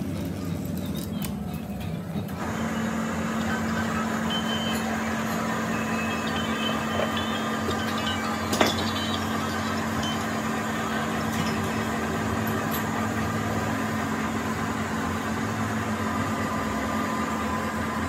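Portable cylinder boring machine's electric motor switching on about two seconds in and running with a steady hum, with one sharp click near the middle.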